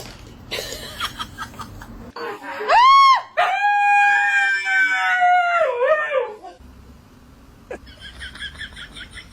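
A pet's long, high-pitched howl: a short note that rises and falls, then a held note of about three seconds that wavers downward and stops. Before it come a few light taps, and after it a faint, quick, repeating high chatter.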